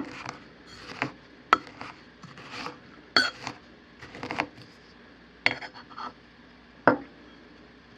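Stainless steel pestle knocking and grinding inside a stainless steel mortar, crushing peanuts: irregular sharp metallic knocks, some with a short ring, about seven over several seconds.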